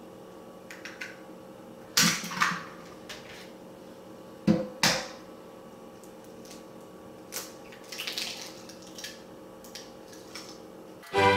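Eggs being cracked against a metal muffin pan: sharp taps in pairs about two seconds and four and a half seconds in, then softer cracking and shell sounds around eight seconds, over a faint steady hum.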